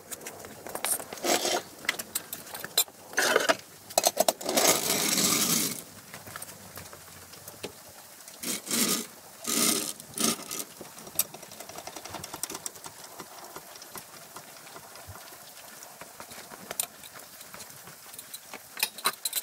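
Metal jack stand and floor jack being handled and set under the van on a concrete floor: a string of clanks and scrapes, with a longer scrape about five seconds in. After about eleven seconds it settles to a few light clicks.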